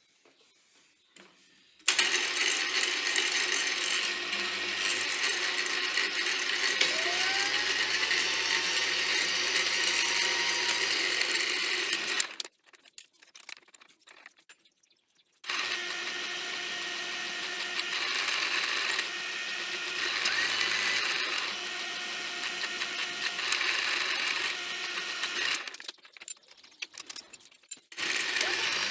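Electric drill boring holes in steel square-tube pieces, running steadily in two stretches of about ten seconds each with a pause between, its pitch rising briefly partway through the first.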